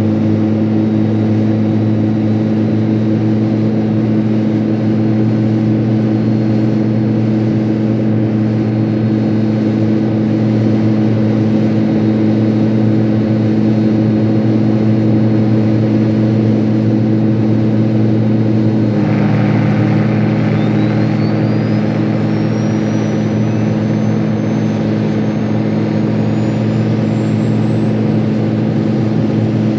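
Westland helicopter engine running with the rotor blades turning, a steady low hum. About two-thirds of the way in the sound shifts and a high turbine whine starts, rising steadily in pitch as the engine runs up.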